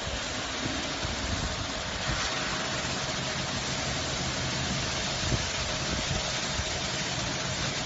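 Diamond wire saw machine running steadily as it cuts stone: an even hiss with a faint low hum beneath it.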